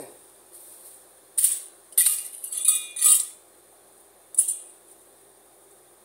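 A series of short, sharp clinks and scrapes: one about a second and a half in, a quick cluster from two to three seconds in, and one more about four and a half seconds in.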